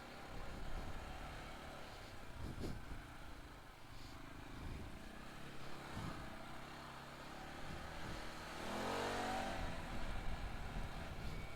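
CFMOTO CForce 500 ATV's single-cylinder engine running under way on a trail, with a couple of knocks along the way. About nine seconds in, the engine note rises briefly as it is revved, then settles back.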